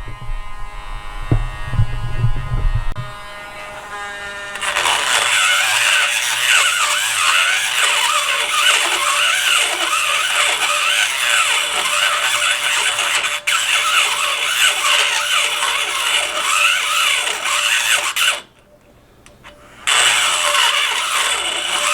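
Dremel rotary tool with a solid double-cut carbide bit, first running with a steady high whine, then from about four and a half seconds grinding into the bore of a mild-steel flange with a harsh, scraping screech. The grinding breaks off for about a second and a half near the end, then starts again. A few low knocks sound in the first three seconds.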